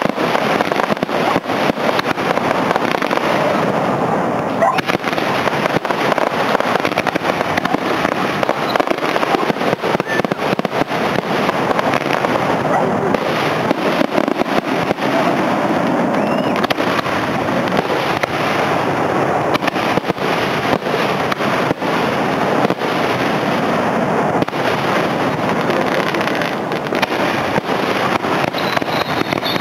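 Aerial fireworks display: shells bursting and crackling in a dense, unbroken barrage, one report running into the next.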